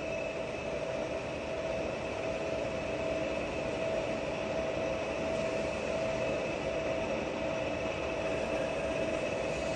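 Giana heavy-duty lathe running with its carriage traversing the bed under power feed at a raised feed rate: a steady mechanical drone with a constant whine over it.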